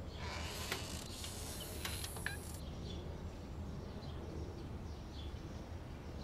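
A hiss with a few sharp mechanical clicks that cuts off about two and a half seconds in, followed by faint, short, high bird chirps about once a second.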